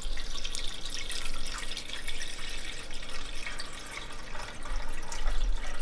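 Water poured in an uneven splashing trickle from a glass measuring cup into a stainless steel saucepan around a standing can of condensed milk, filling the pan partway up the can's sides.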